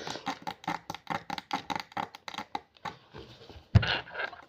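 A heated needle picking at hard dalgona honeycomb candy in quick clicks, about five a second, followed near the end by one sharp knock.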